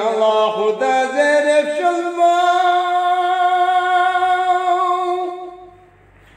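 A man singing a Balti devotional qasida unaccompanied, a line that climbs in steps with small ornamental turns and ends on one long held note that fades out about five seconds in.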